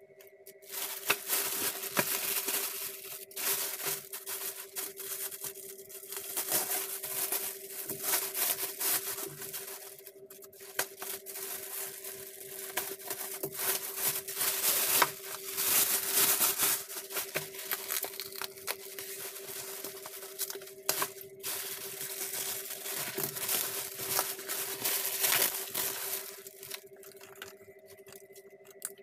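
Plastic mailer bag being torn open and crumpled by hand: irregular rustling and tearing that starts about a second in and stops near the end, with a couple of brief pauses. A faint steady hum runs underneath.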